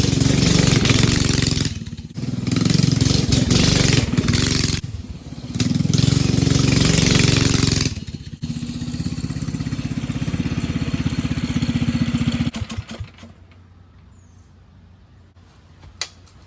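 Vintage minibike's small engine revving in three surges, then running steadily at a lower speed for a few seconds before dying away about twelve seconds in. A single sharp click comes near the end.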